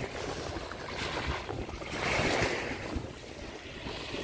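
Small Baltic Sea waves breaking and washing up a sandy shore, the surf swelling to a peak about halfway through and then drawing back.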